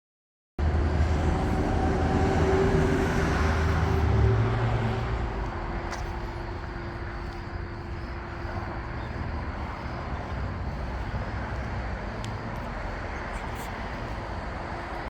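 An engine running steadily, louder for the first few seconds and then settling to a lower level, with a few faint clicks later on.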